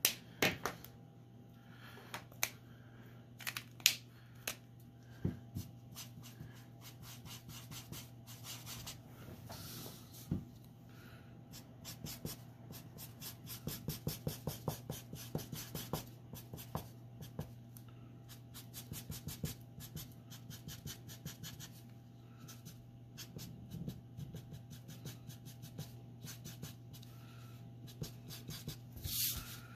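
Copic alcohol marker nib rubbing on drawing paper in quick repeated strokes, with a dense run of rapid strokes in the middle and a few sharper taps in the first four seconds. A steady low hum sits underneath.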